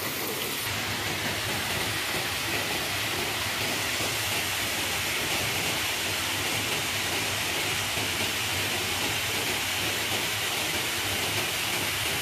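Small waterfalls pouring over rock ledges into pools: a steady rush of falling water.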